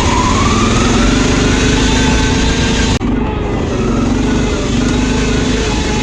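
Riding lawn mower engine running hard at speed, with a whine that climbs in pitch over the first couple of seconds as it picks up speed. There is a brief sudden dip about halfway through.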